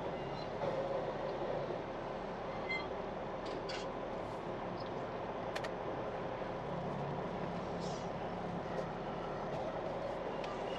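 Diesel semi-truck engine running steadily at low speed as the tractor creeps forward, heard from inside the cab, with a few faint clicks.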